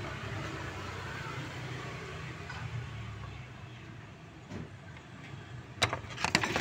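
Steady low background rumble, then a few sharp clicks and knocks near the end as the air filter housing of a Yamaha Lexi scooter is worked loose by hand.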